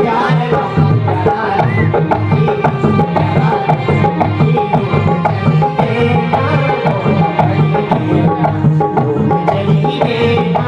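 Instrumental passage of a Pahari folk song, with a hand drum keeping a steady rhythm under a sustained melody line.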